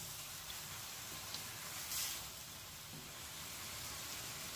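Faint sizzling of oyster mushrooms, tofu and dried shrimp stir-frying in a wok.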